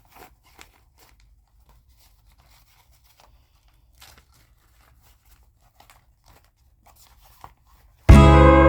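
Faint, scattered rustles and small clicks of items and packaging being handled. Loud acoustic guitar music starts suddenly near the end.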